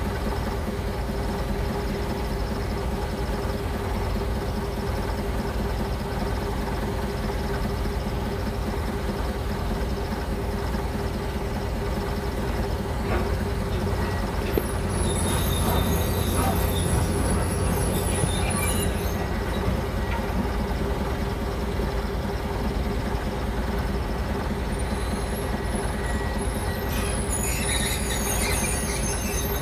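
Heavy diesel machinery running steadily, swelling a little in the middle. High metallic squeals come in twice, for a few seconds each time: once midway and again near the end.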